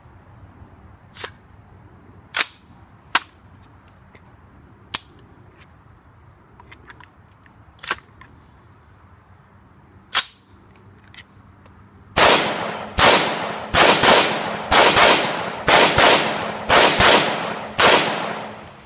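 Palmetto State Armory PTAC AR-15 rifle in 5.56/.223: a few sharp metallic clicks as the action and magazine are worked after a failure to feed, then about a dozen semi-automatic shots in quick succession, roughly two a second, each ringing out, emptying the magazine.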